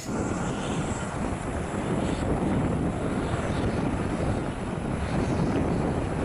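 Lockheed C-130 Hercules' four turboprop engines running as the aircraft rolls along the runway: a steady, dense propeller and engine drone.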